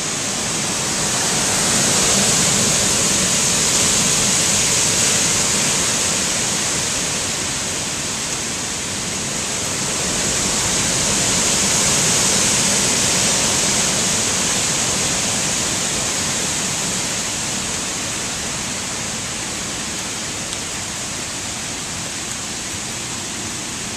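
Strong hurricane winds gusting through the trees, a steady rushing hiss of tossing leaves and branches that swells twice and eases off toward the end.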